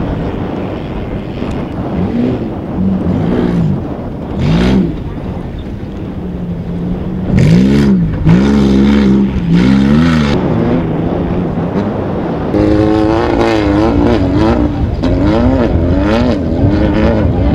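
Off-road race buggies' engines revving hard as they accelerate across sand, the pitch climbing and dropping again and again with the throttle and gear changes.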